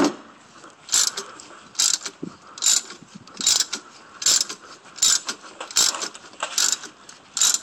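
Ratchet wrench turning the forcing screw of a three-jaw puller that is drawing a rusted harmonic balancer off the crankshaft. It clicks in short bursts on each back-swing, a little more than once a second.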